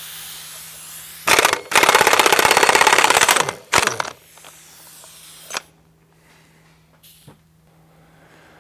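Air impact wrench with a 1-13/16-inch socket hammering loose the large spindle nut on a tractor final drive. It gives a short burst, then about two seconds of rapid continuous hammering, then another short burst.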